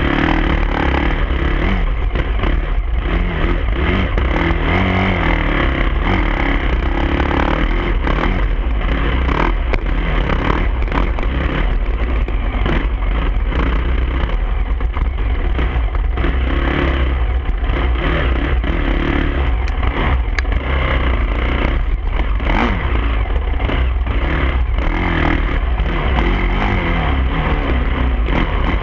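Dirt bike engine revving up and falling back again and again while riding a rough trail, with wind buffeting the microphone and short rattles and knocks as the bike goes over bumps.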